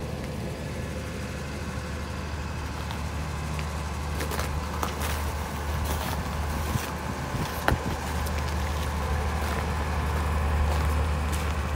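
Mobile diesel generator running with a steady low drone, with a few faint clicks and knocks.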